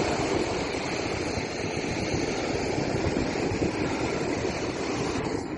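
Sea surf: a steady rushing wash of waves.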